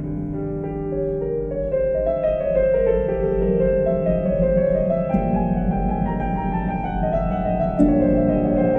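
Instrumental background music led by a piano, with sustained notes moving through a gentle melody. There is a short click near the end.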